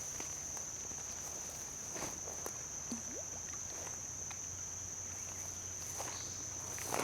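Insects, crickets or similar, trilling in one steady high tone, with a few faint knocks.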